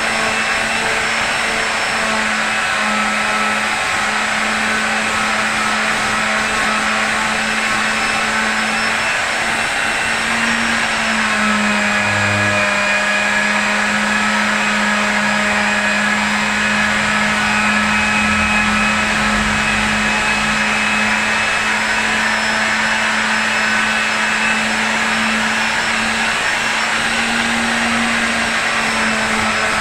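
A small motor running continuously with a steady hum and hiss; its pitch shifts slightly about twelve seconds in.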